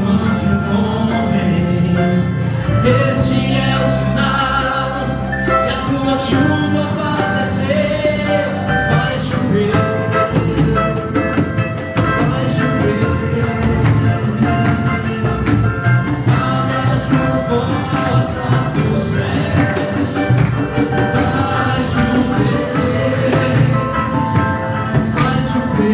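Gospel samba group singing together over a band, with steady fast percussion under sustained sung notes.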